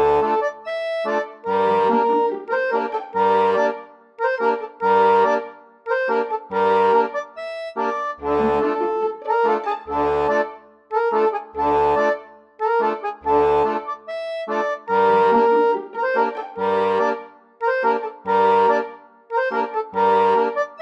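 Background instrumental music with a steady beat: sustained chords over a low bass note that comes back about every second and a half.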